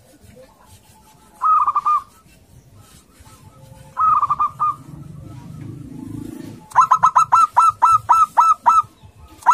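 Zebra dove (perkutut) calling: a short quick burst of cooing notes, another burst a few seconds later, then a longer run of about ten rapid staccato coos near the end.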